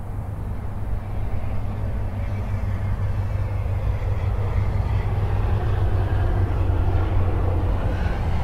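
Highway traffic: a steady low drone of passing vehicles that gradually grows louder.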